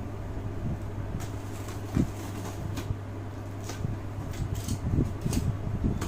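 A steady low hum with scattered light clicks and knocks of parts being handled, and one louder knock about two seconds in.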